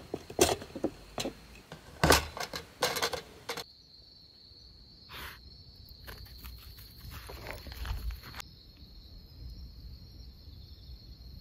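A few sharp clicks and knocks, then crickets chirring in one steady high tone, with light scuffing steps on sandy ground a little past the middle.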